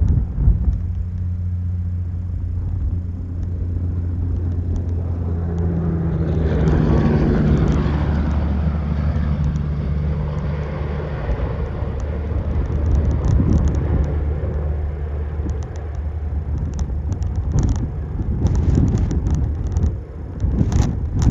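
Vehicle running, with a steady low engine hum and road noise. A rushing noise swells about six seconds in and stays. Scattered clicks and knocks come near the end.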